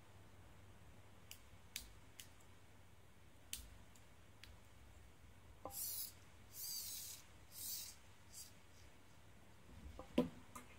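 Faint clicks of small plastic robot parts and a servo being fitted together by hand, then three short scratchy rubbing sounds in the middle and a louder knock near the end as a part is set down on the wooden table.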